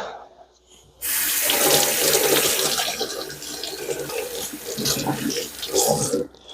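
Kitchen tap running into a sink, turned on about a second in and off near the end, the stream splashing unevenly.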